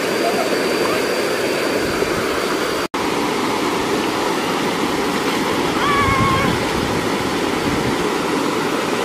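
Steady rush of a small waterfall pouring into a rock pool, cut off for an instant about three seconds in.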